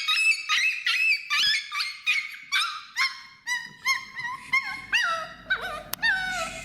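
Dog crying out in distress while being held for mango worm removal: a rapid series of short, high-pitched yelps, about three a second, that turn into longer, lower, falling whines in the second half.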